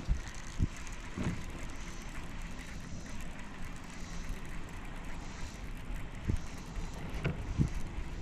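Scattered knocks and thumps of gear handled in a plastic fishing kayak, a sharp click right at the start, over a faint steady low hum.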